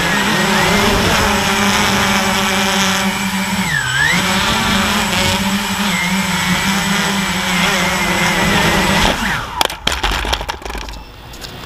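Walkera QR X350 quadcopter's four brushless motors and propellers whining steadily in flight, the pitch dipping and recovering briefly about 4 s in. About 9 s in the whine breaks off into several sharp knocks as the quadcopter comes down on the concrete and tips over, and then it is much quieter.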